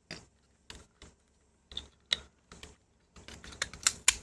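Small plastic parts of a camera's viewfinder housing clicking and snapping as its clips are pried apart, in sharp irregular clicks that come thicker near the end.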